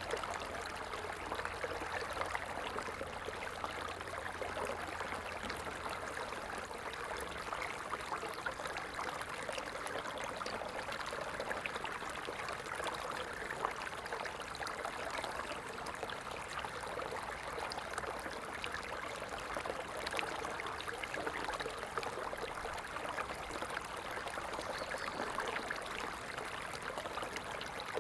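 Stream of water flowing steadily, an even babble of trickling water.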